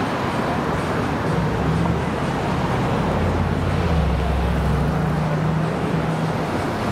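City street traffic: a steady wash of road noise with a motor vehicle's low engine hum that grows louder in the middle and fades near the end, as the vehicle passes close by.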